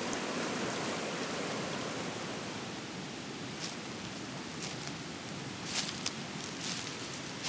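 Steady rush of a fast, white-water mountain river, easing a little after about two seconds. From about halfway on, a few short crunching rustles of footsteps on dry fallen leaves.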